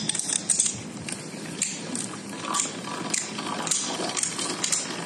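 Irregular light metallic clicks and clinks, several a second, uneven in spacing and strength.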